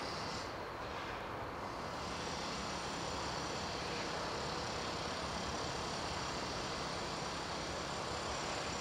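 Steady background hiss and rumble with no distinct event and no bird song.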